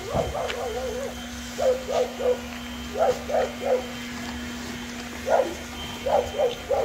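A dog barking repeatedly in short, sharp barks, mostly in quick runs of three with brief pauses between.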